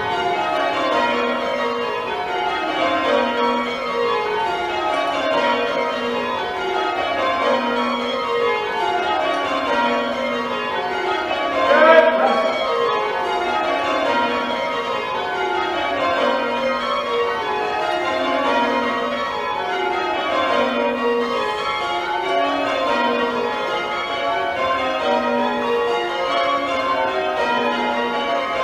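Ten church bells rung full-circle in change ringing, the ten of a minor-key set within a mixed-founder light ring. The strikes fall in row after row from the highest bell to the tenor, heard from the ringing chamber below. A short loud call is heard about halfway through.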